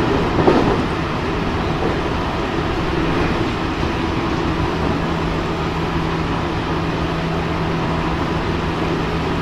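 JR Central 313-series electric motor car running at speed, heard from inside the passenger cabin: a steady rumble of wheels on rail with a steady motor hum. There is one brief louder knock about half a second in.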